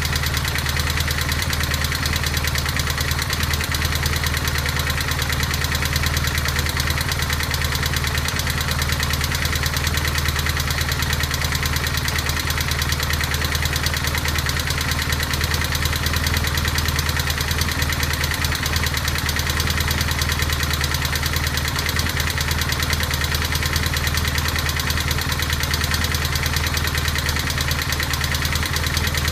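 BMW R1200GS boxer-twin engine idling steadily with a continuous rapid clatter.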